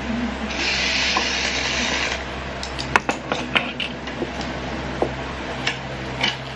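Kitchen handling sounds: a short hiss for about a second and a half, then scattered clinks and taps of utensils and dishes, over a steady low hum.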